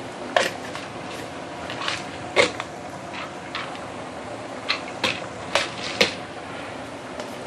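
A handful of sharp, separate clinks and knocks of kitchen utensils and spice containers against a pot while whole spices go into a simmering braise, over a steady background hiss.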